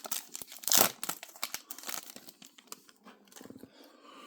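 A trading card pack's wrapper crinkling and tearing as it is opened. The crackles are loudest in the first second, then thin out into quieter rustling.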